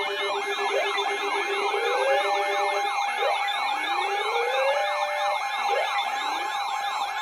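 Emergency vehicle siren on a fast yelp, sweeping up and down about three to four times a second over a steady tone, with slower rising wail sweeps layered in.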